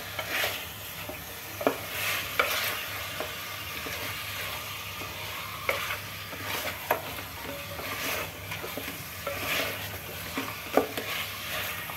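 Wooden spatula stirring and scraping marinated chicken pieces around an aluminium pot, with a few sharp knocks against the pot, over a steady sizzle of the chicken frying in oil.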